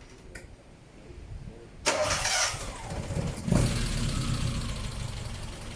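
Mitsubishi Sigma's Astron 2000 four-cylinder engine being started: the starter turns it over about two seconds in, it fires and catches about a second and a half later, then settles into a steady run.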